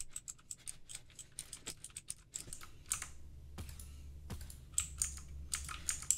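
Clicky blue-switch keys on an Aukey mechanical keyboard pressed in quick, irregular runs during gaming. There is a short lull a little over two seconds in before the key presses resume.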